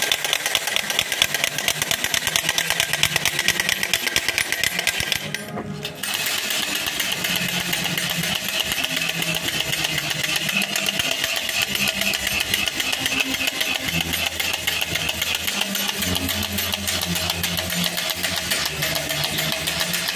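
Rapid, continuous clattering rattle that stops briefly about five seconds in, over a low melody.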